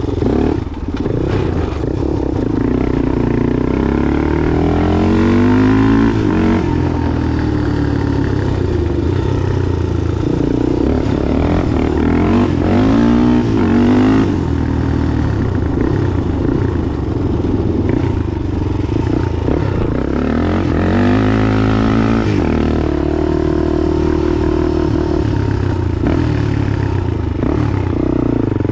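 Dirt bike engine revving up and down as it is ridden, its pitch climbing and dropping again and again with the throttle.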